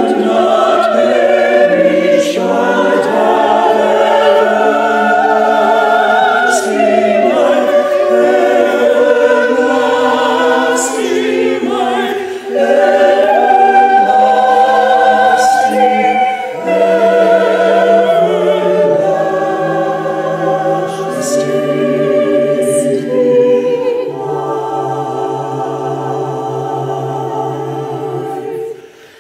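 A choir singing in harmony, several voice parts holding long notes in phrases. It is softer for the last few seconds and fades out at the end.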